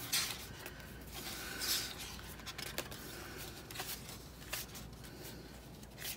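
Paper sticker sheets and book pages being leafed through and handled: short rustles with light taps and clicks, the loudest right at the start and at about a second and a half in.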